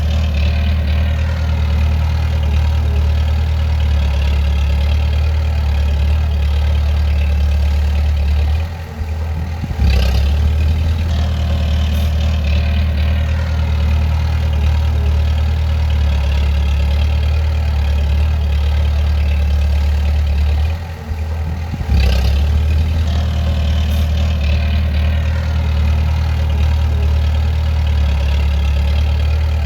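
Bulldozer's diesel engine running steadily with a deep hum. The sound drops off briefly twice and comes back with a click.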